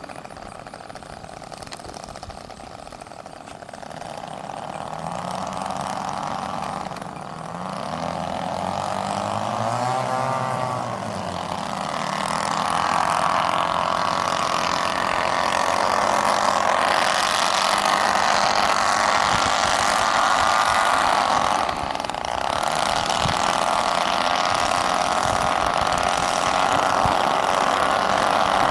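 The engines and propellers of a four-engine radio-controlled B-17 scale model running at low throttle as it taxis, a hum that grows louder as it comes closer, with a brief rise and fall in pitch about ten seconds in.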